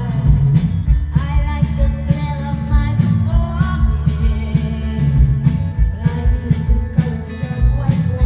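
Live rock band playing, with a woman singing over guitar, bass and drums keeping a steady beat, as heard from the audience.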